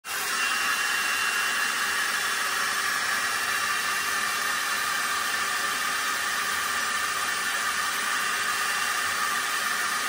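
Handheld hair dryer running steadily on the hair: an even rush of blown air with a faint thin whine riding over it.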